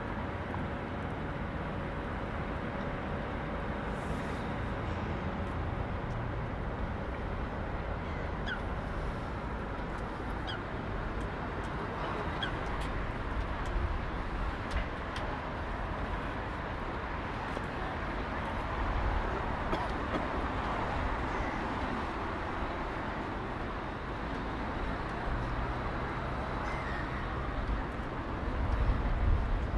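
City street ambience: a steady wash of urban background noise with low traffic rumble, a few short high chirps scattered through it, and the rumble growing louder near the end.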